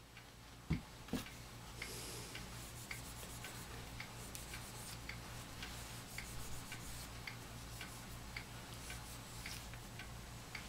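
Quiet, regular ticking about once a second over a low steady hum, with two knocks about a second in as the work is handled.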